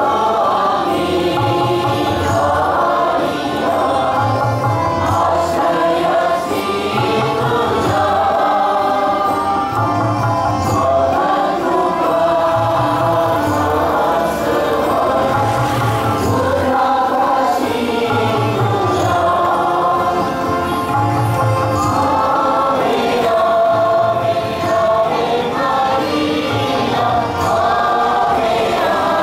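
A crowd of worshippers singing a hymn together over instrumental accompaniment, with a low beat pulsing every second or two underneath.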